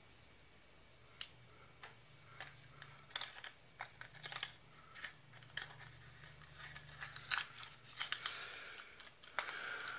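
Small plastic bags of engine parts crinkling and rustling as they are handled, with scattered light clicks, over a faint steady hum.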